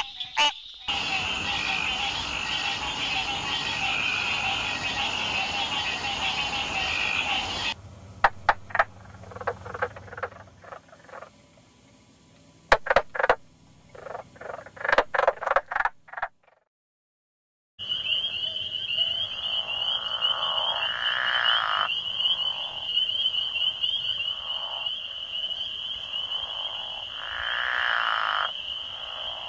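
A run of different frogs calling. First a dense chorus of frogs. Then a mink frog gives a string of sharp knocking notes with a drumming sound. After a short pause, a pickerel frog gives long croaks, twice, over a steady high trill.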